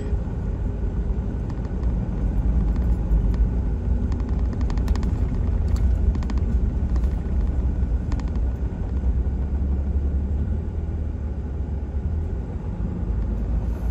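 Pickup truck driving along a dirt road, heard from inside the cab: a steady low rumble of engine and road noise, with faint ticks here and there.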